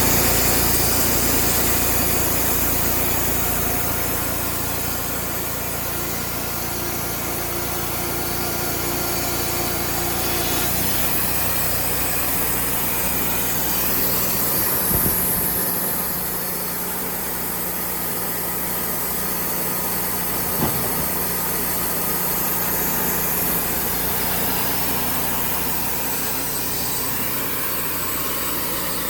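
Portable band sawmill running, its engine steady as the band blade cuts through a white oak log; the engine note shifts about eleven seconds in, with a couple of faint knocks.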